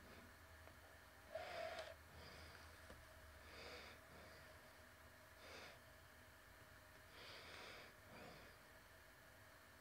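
Near silence, with a person's faint breathing close to the microphone, a breath about every two seconds; one breath about a second and a half in is a little louder.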